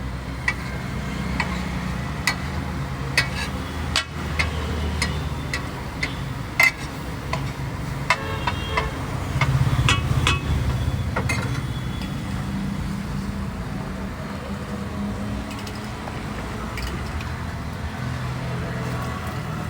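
A metal spatula clinking and knocking against a large tawa at irregular intervals, some strikes ringing briefly, over a steady low rumble of street traffic.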